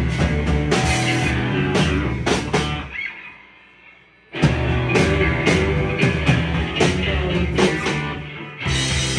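Live rock band playing loud electric guitars and drums. About three seconds in the band stops and the sound dies away, then everyone comes back in at once about a second and a half later.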